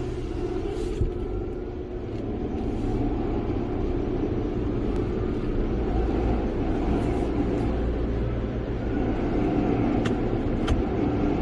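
Steady rumble and hiss of a drive-through tunnel car wash's machinery running, heard from inside the car's cabin, with two brief sharp clicks near the end.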